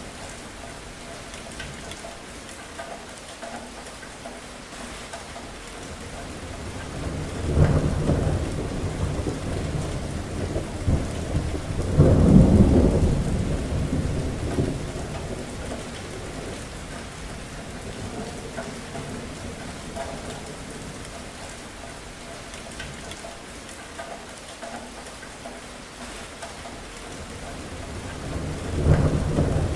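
Thunderstorm: steady rain falling, with rolling thunder rumbles about seven seconds in, a louder one about twelve seconds in, and another building near the end.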